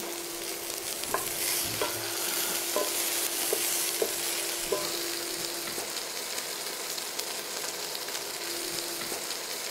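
Food sizzling steadily in a frying pan, with a few light clicks of kitchenware being handled in the first five seconds and a faint steady hum underneath.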